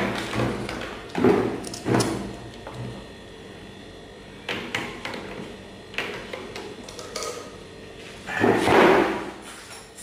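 Hand-handling of a mini hot glue gun and craft materials on a model's base board and a wooden table: scattered knocks and thumps, with a louder, longer clatter near the end.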